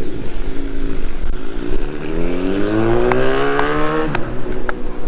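Car engine speeding up as the car accelerates. Its pitch rises steadily for about two and a half seconds, then drops off sharply about four seconds in, over a steady low rumble.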